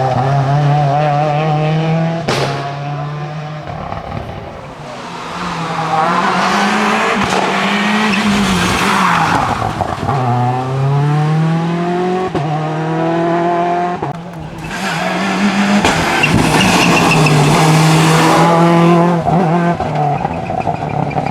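Seat Córdoba WRC rally car's turbocharged four-cylinder engine at full effort, the revs climbing and dropping again and again through gear changes, with a sharp crack about two seconds in and stretches of tyre noise.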